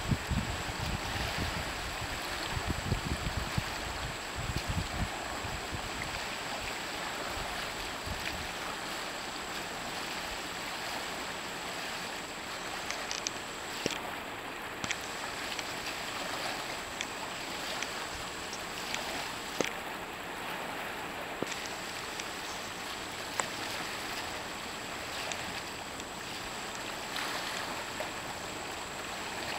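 River water rushing over a shallow rapid where it forms a small standing wave, a steady hiss, with occasional short splashes. Wind rumbles on the microphone through the first few seconds.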